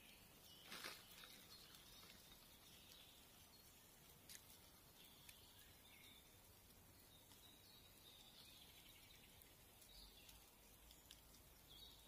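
Near silence: quiet forest ambience with faint, scattered bird calls and a brief rustle about a second in.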